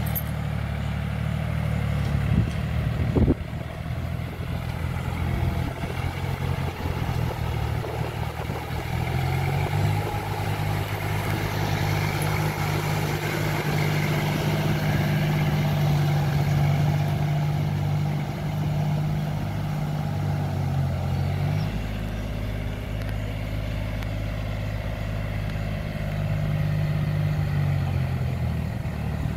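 Diesel tractor engine running steadily under load while puddling a flooded paddy field on iron cage wheels, its note shifting about ten seconds in and again around twenty-two seconds. A single knock about three seconds in.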